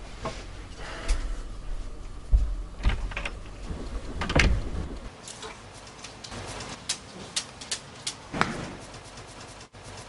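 Scattered clicks and light knocks as a blue-and-gold macaw clambers along a rope perch and beaks at a compact camera, with a few heavier thumps, the loudest about halfway through.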